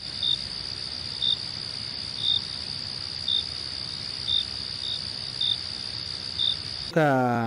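Crickets chirping: a steady high trill with a louder chirp about once a second, the stock 'crickets' sound effect over an unanswered silence. Near the end a chanting voice cuts in.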